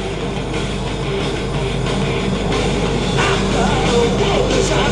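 Rock music, played loud.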